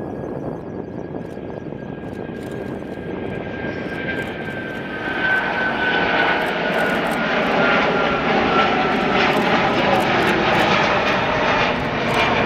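Airbus A330 jet engines at takeoff thrust as the airliner rolls past, lifts off and climbs away. The engine noise swells about five seconds in, with a high whine that slowly falls in pitch as it passes.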